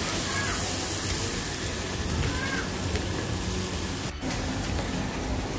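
Fish sizzling in oil on a large flat griddle, a steady hiss, with faint chatter of other diners underneath. The sound cuts out for an instant about four seconds in.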